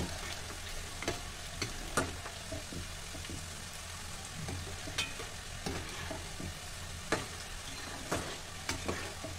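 Namak pare dough pieces deep-frying in hot oil in a kadai: a steady sizzle. A metal slotted spoon clinks and scrapes against the pan every second or so as the pieces are stirred.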